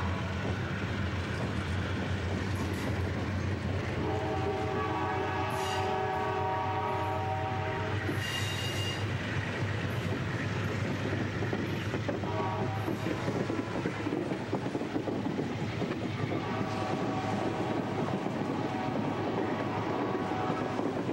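Amtrak diesel locomotives hauling a Superliner passenger train past a grade crossing, engines working under load with steady rumble and wheel clatter. The horn sounds the grade-crossing pattern: a long blast ending about a second in, a second long blast, a short one, and a final long blast held through the end.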